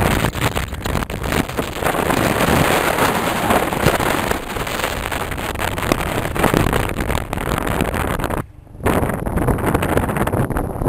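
Wind buffeting the microphone of a moving vehicle: a steady rushing noise with gusty flutter. It drops away for under a second about eight and a half seconds in.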